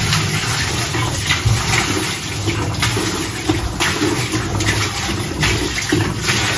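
Water pouring from a plastic jerrycan into the plastic wash tub of a twin-tub washing machine, a steady splashing stream.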